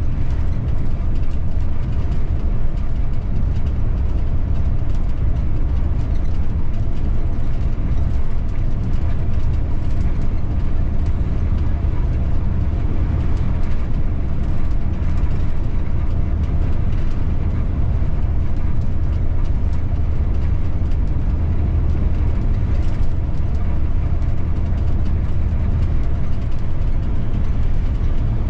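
City bus driving, heard from the driver's cab: a steady low rumble of engine and road noise that keeps an even level throughout, with a few faint clicks.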